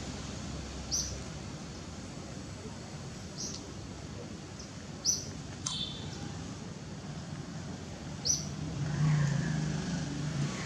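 Outdoor ambience with a steady background hiss, broken every few seconds by a bird's short, high chirp, four times in all. A low sound swells near the end.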